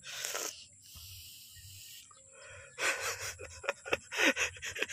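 A young girl's breathy gasps and giggling: one short gasp at the start, then a quick run of short breathy bursts of laughter from about three seconds in.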